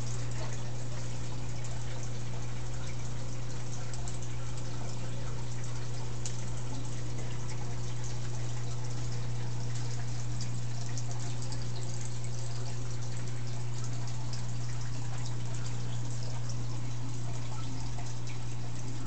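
Aquarium filter running: water splashing and trickling steadily back into the tank over a constant low hum.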